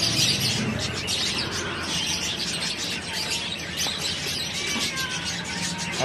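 Many small cage birds chirping together in a steady chorus of quick high chirps, with a few short whistled notes in the middle.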